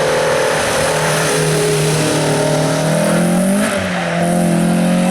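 Hill-climb race car engine under hard acceleration, its pitch climbing steadily. About three and a half seconds in the revs drop sharply at an upshift, then climb again.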